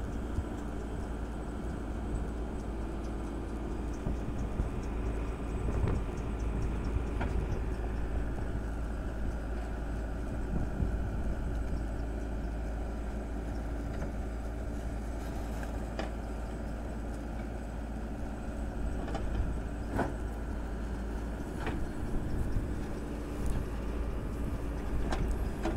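Diesel engine of a JCB 3DX backhoe loader running steadily as it digs and loads manure, with a few short sharp knocks now and then.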